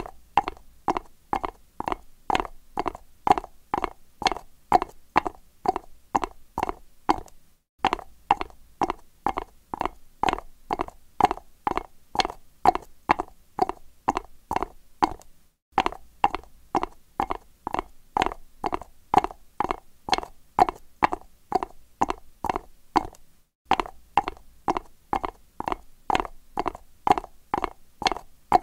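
Horse's hooves striking concrete at a trot: a steady clip-clop of about three hoof falls a second, with brief gaps roughly every eight seconds.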